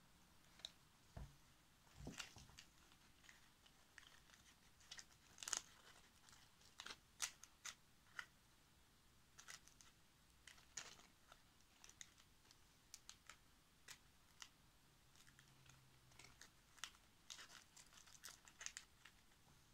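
Faint, irregular crinkling and small ticks of dry, papery physalis husks being handled and pressed into place by fingers.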